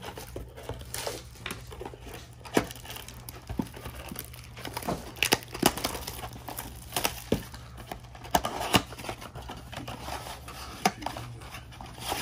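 A cardboard trading-card blaster box being unwrapped and opened by hand: its plastic wrap crinkling and tearing, with irregular sharp clicks and scrapes of the cardboard as the flap is pulled open.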